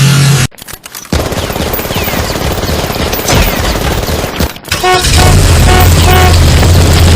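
Digitally distorted sports car horn sound effect: it cuts out briefly, then breaks into rapid crackling like machine-gun fire for about three seconds, cuts out again, and ends as a few short horn toots over a steady low hum.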